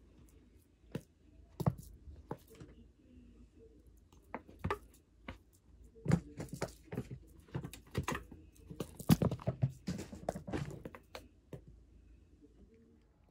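A tabby cat playing with a toy on carpet: scattered thumps, scuffles and clicks of paws and toy, busiest from about six to eleven seconds in, then dying away.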